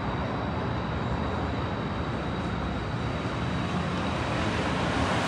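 Steady city street noise: a continuous traffic rumble and hum with a faint steady high whine, growing a little louder near the end as traffic comes closer.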